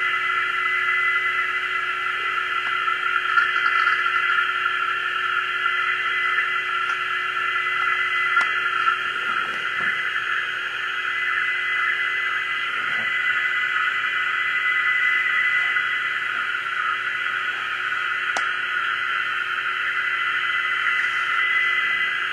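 Shortwave receiver audio of the JMH Tokyo HF radiofax broadcast on 13988 kHz: steady hiss narrowed by a DSP audio filter to a band around 1.5–3 kHz, with faint steady fax tones in it. The signal is well in the noise under very marginal propagation.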